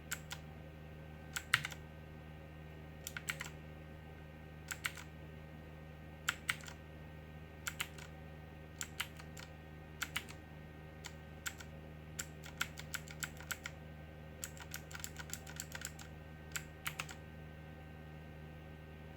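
Keys of an Armaggeddon MKA-5R RGB Falcon mechanical keyboard being pressed, as single clicks and quick pairs and clusters at irregular intervals, stopping about seventeen seconds in. A steady low electrical hum runs underneath.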